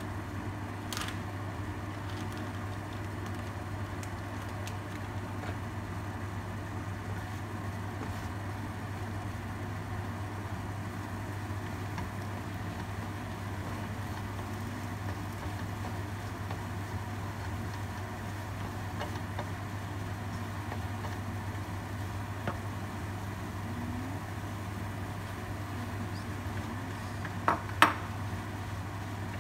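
Kimchi, egg and rice frying in a pan while being stirred with a wooden spatula, over a steady low hum. Near the end come two sharp knocks of the spatula against the pan.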